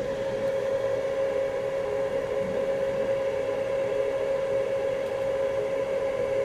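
Steady machine hum with a constant mid-pitched tone, like a small fan or motor running at an electronics workbench.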